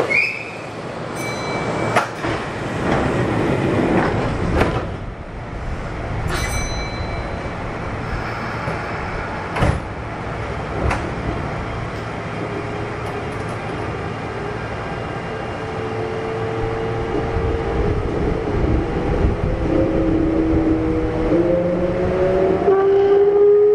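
Kintetsu 1233 series electric train heard on board, with its Hitachi GTO-thyristor VVVF inverter: a few short chimes and clunks while it stands, then from about midway the inverter's whine rising in pitch in steps as the train pulls away and gathers speed, growing louder near the end.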